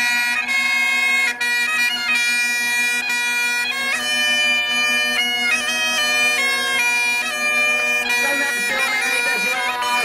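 Great Highland bagpipe played: a steady drone held under a chanter melody whose notes change quickly.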